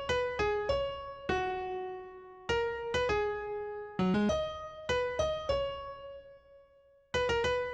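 Background music: a keyboard melody of single struck notes that ring and fade away. It stops for about a second near the end, then starts again.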